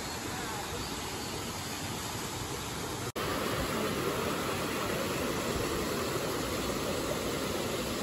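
Steady rush of a waterfall falling into a rock pool. About three seconds in it cuts to a louder, closer sound of shallow water running and splashing over rocks.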